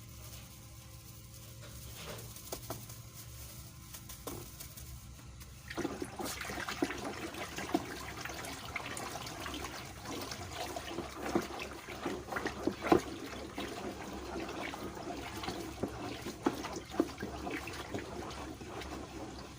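Water with dissolved thickener being mixed in a container for homemade conditioner: a few light knocks, then from about six seconds in, continuous sloshing and splashing with many small ticks.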